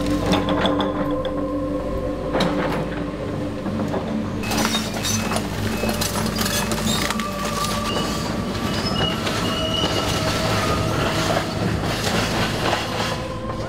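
Tracked excavator at work on a house demolition: engine and hydraulics running steadily, steel tracks clanking and squealing over debris, with repeated cracks and crashes of timber breaking.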